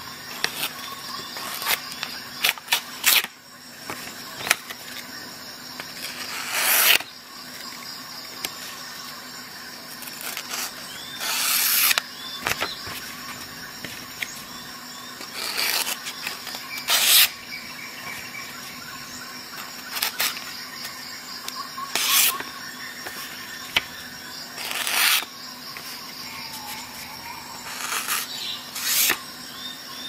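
Metal multi-tool being handled: a Victorinox Swisstool Spirit's tools and pliers opened and closed, giving sharp metal clicks and short scraping slides at irregular intervals, about fifteen in all. A faint steady hum lies underneath.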